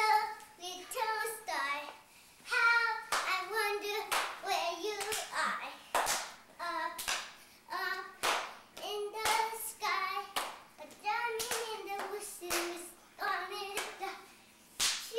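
Children singing a song while clapping along, the claps coming sharp and fairly regular throughout the singing.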